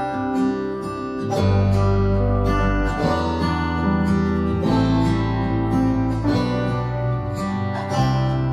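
Background music: a strummed acoustic guitar tune with low notes that change every second and a half or so.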